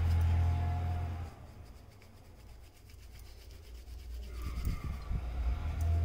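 Hands rolling and rubbing soft gram-flour dough into logs, a soft rubbing sound. A low hum fades about a second in and comes back near the end.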